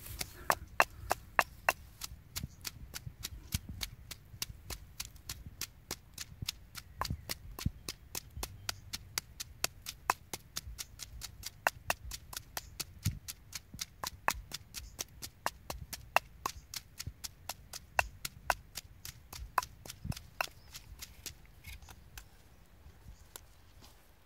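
Wooden pestle pounding chilies in a stone mortar: steady, sharp knocks at about three strikes a second, fading out near the end.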